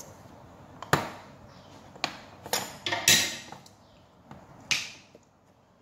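A run of sharp knocks and clatters, roughly one a second, with a short rustling scrape just past the middle, like objects being handled on a kitchen counter.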